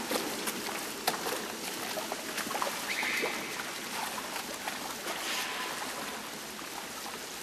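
Boots wading and sloshing through shallow sewer water while water trickles, with scattered clicks and knocks of gear, the sharpest at the very start and about a second in. A short high squeak comes about three seconds in.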